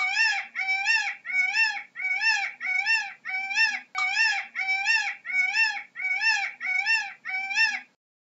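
Indian peafowl (peacock) calling: a run of about a dozen short, high calls in quick succession, each rising then falling in pitch, about two a second, stopping near the end.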